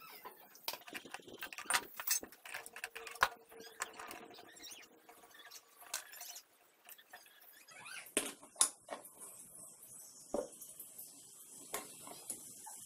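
Irregular metal clicks, clinks and scrapes of hand tools and loose parts on the rusty cast-iron head of an old bench drill press as it is taken apart, with a few sharper knocks.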